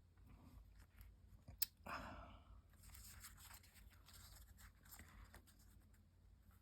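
Faint rustling of paper pieces being handled and moved about on a craft tag, with a sharp tap about one and a half seconds in and a brief louder rustle just after.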